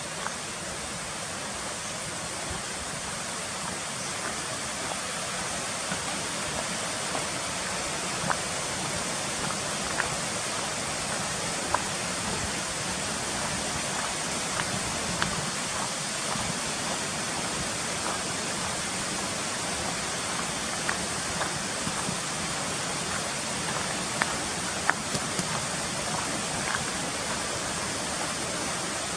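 Steady rush of flowing water from a mountain stream, an even hiss that grows a little louder, with scattered light ticks and taps.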